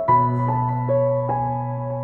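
Calm background music: single notes struck at a slow, even pace, about two to three a second, each ringing on over a held low note.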